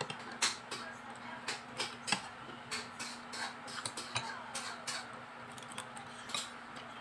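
Spoon and fork clicking and scraping against a plate of food during a meal, in short irregular clicks. A steady low hum runs underneath.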